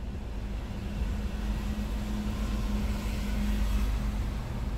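A 2013 Honda CR-V's 2.4-litre four-cylinder engine idling, heard from inside the cabin as a steady low rumble with a constant hum.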